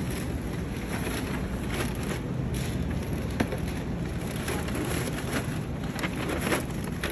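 Supermarket interior ambience: a steady hiss of room noise with a few scattered clicks and clatters, the sharpest about three and a half seconds in.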